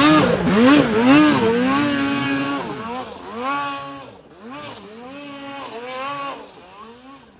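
Turbocharged Arctic Cat Catalyst snowmobile's two-stroke engine revving up and down in quick repeated surges, about two a second, as the sled climbs a steep slope under load. The sound grows fainter as the sled pulls away.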